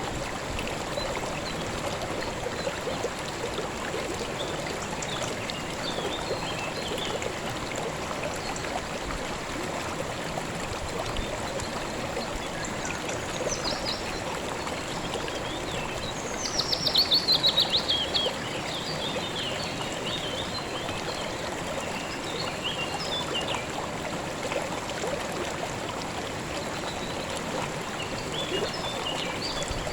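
Small river or creek flowing steadily over stones. Birds chirp now and then over it, and one bird gives a loud, fast trill that falls in pitch about seventeen seconds in.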